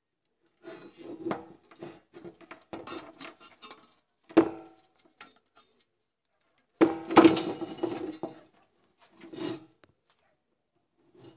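Handling noise from a computer power supply being taken apart: its circuit board and wiring knock and scrape against the steel case and the bench in irregular clicks and rattles, with sharp clunks about four seconds in and about seven seconds in.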